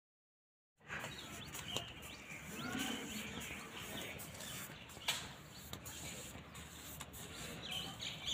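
Dead silence for under a second, then faint outdoor ambience with small birds chirping in short repeated calls and a few scattered light clicks.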